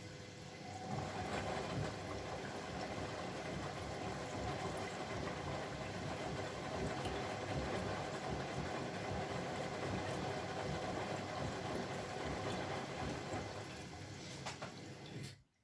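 Bosch Maxx WFL 248Y washing machine running with a steady churning, water-laden noise that grows louder about a second in and cuts off abruptly near the end.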